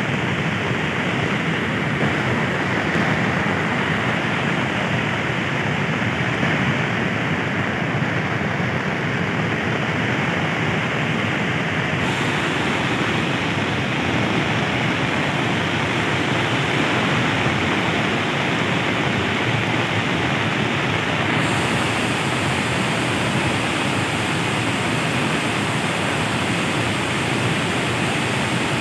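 Muddy floodwater of a swollen hill river rushing and churning over broken concrete structures, a steady, loud, unbroken water noise.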